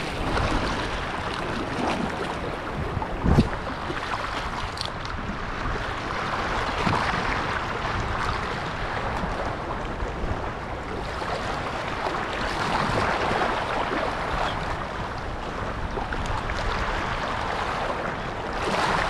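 Seawater washing and lapping at the shore, with wind blowing on the microphone. There is one sharp knock about three and a half seconds in.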